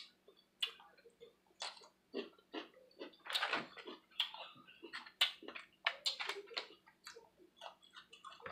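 Close-up eating sounds of boiled blue crab and crawfish picked apart by hand: irregular cracks and crackles of shell breaking, with wet smacks and chewing.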